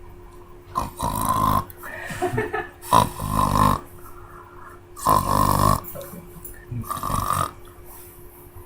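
A sleeping man snoring heavily: four loud snores about two seconds apart, with softer breathing sounds between them.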